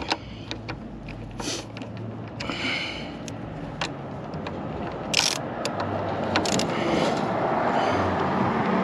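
Sharp metal clicks from a hand tool working the pad retaining pins on a motorcycle's front brake caliper, over a steady rush of passing traffic that grows louder toward the end.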